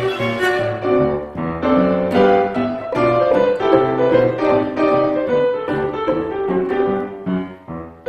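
Piano trio playing, the grand piano to the fore with a busy run of notes, violin and cello with it.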